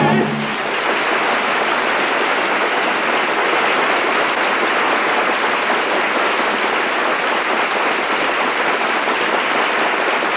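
Studio audience applauding, a dense and steady clapping. The music's final chord cuts off just as the applause begins, heard through an old narrow-band broadcast recording.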